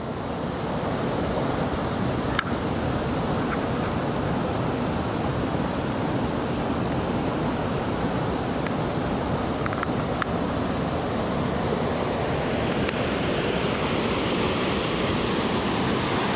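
Steady rushing of river rapids, fading in at the start and turning hissier in the last few seconds.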